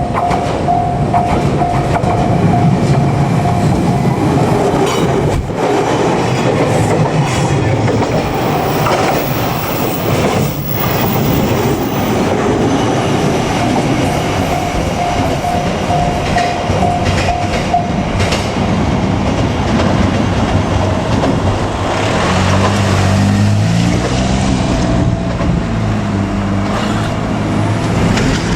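JR Kyushu 817-series electric trains passing over a level crossing: wheels clattering over the rail joints and a heavy running rumble. A level crossing bell rings with an even pulsing tone at the start, again in the middle, and near the end. In the last few seconds a low hum steps up and down in pitch.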